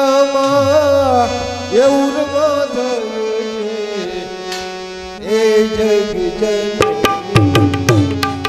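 Live Indian devotional bhajan music: tabla playing, with low bass strokes that swell and fade, under a gliding melodic line. A cluster of sharp percussive strokes comes near the end.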